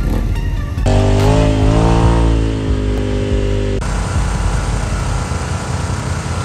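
Off-road vehicle engine revving, its pitch climbing and easing back over about three seconds, then cutting abruptly to a steadier, noisier engine running.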